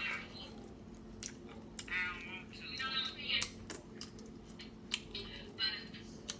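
Close-miked chewing of grilled chicken, with many sharp mouth clicks scattered throughout, over a steady low hum.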